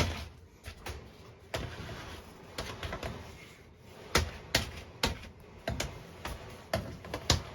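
Irregular knocks and clicks as a clothes dryer is pushed back toward the wall.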